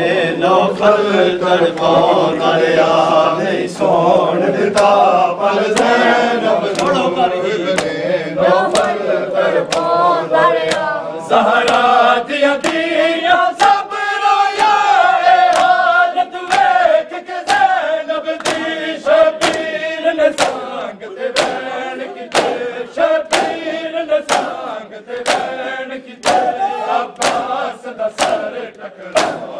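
Men chanting a Shia noha lament in unison, with the rhythmic slaps of matam chest-beating keeping time, about one and a half strikes a second. The strikes grow sharper in the second half.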